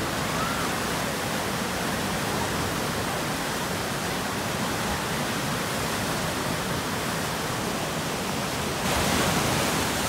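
Turbulent whitewater of the Eisbach standing river wave, rushing steadily. It gets a little louder and brighter about nine seconds in.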